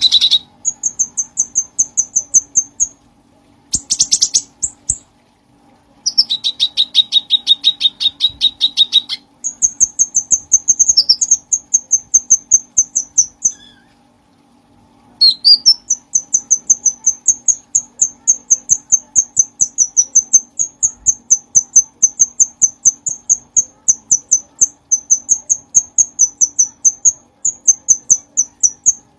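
Cucak cungkong songbird singing vigorously. Its song is long runs of rapid, evenly repeated high chirping notes, several a second, with a few short pauses between phrases and one lower-pitched run partway through. A faint steady hum lies underneath.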